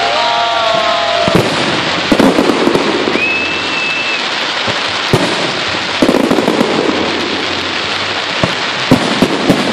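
Aerial fireworks display: shells bursting with sharp bangs, and the dense crackle of gold glittering effects. A short high whistle sounds about three seconds in.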